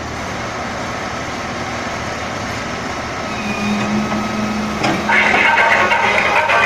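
A heavy diesel machine's engine running steadily, with a low steady tone added for a second or two partway through. About five seconds in, music starts over it.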